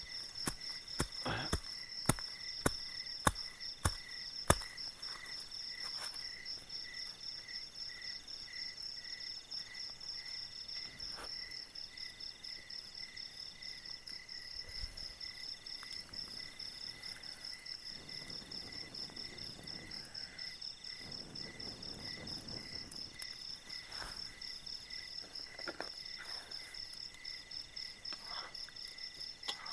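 Night-time forest insect chorus: crickets keep up a steady high trill, joined by a lower call pulsing about twice a second. A run of sharp clicks and knocks sounds close by in the first few seconds, the loudest sounds here.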